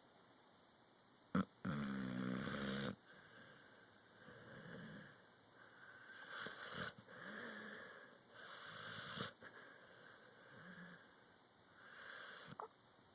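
American pit bull terrier snoring in its sleep: a short sharp click, then one loud snore about two seconds in, followed by about four softer snoring breaths every two to three seconds.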